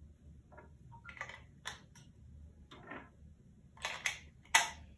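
Batteries being pressed into the small plastic battery compartment of a fridge purifier: a run of irregular clicks and clacks, the loudest about four and a half seconds in.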